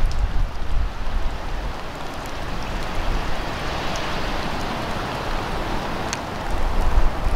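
Floodwater washing among ice floes and debris: a steady hiss of water, with wind rumbling on the microphone at the start and again near the end.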